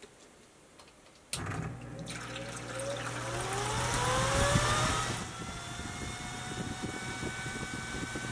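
Fantech 190 CFM inline exhaust fan switched on about a second in: the motor spins up with a rising whine and a swelling rush of air. About five seconds in it settles into a steady run with a level whine over the airflow.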